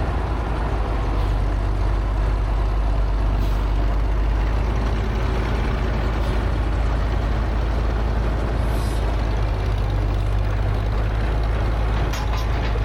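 A heavy machine's engine running steadily with a low, even rumble.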